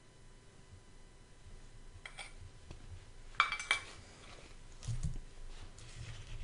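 Light clinks and taps of things being handled on a tabletop: a few short clicks, the sharpest pair about three and a half seconds in, then soft low thumps.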